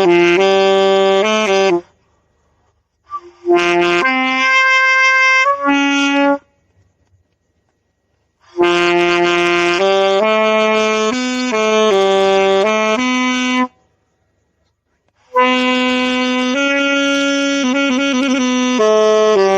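Saxophone played by a beginner practising: phrases of slow, held notes stepping up and down in pitch, broken by silent pauses of one to two seconds between phrases.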